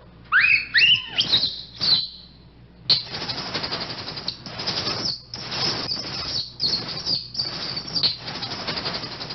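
Infant rhesus monkey calling: a few shrill, rising calls about half a second in, then from about three seconds on a run of harsh, noisy screeches, each under a second, with short breaks between them.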